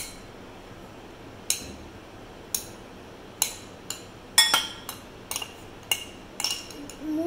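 Steel spoon and glass serving dishes clinking as boiled mung beans are scooped into a glass bowl: about a dozen sharp, irregular clinks, several with a brief glassy ring, coming thicker toward the end.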